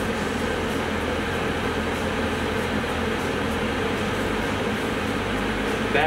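Two-stage gas furnace running on low-stage fire: a steady rush of the burners and draft inducer fan, with no change in the sound.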